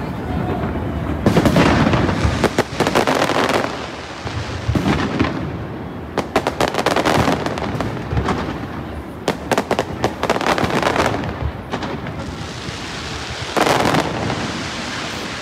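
Aerial fireworks display going off: repeated booming shell bursts overlapping with fast crackling, with dense runs of crackle in the middle and another loud burst near the end.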